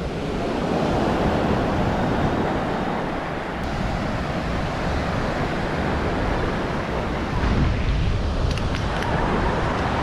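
Surf washing on the beach, with wind buffeting the microphone.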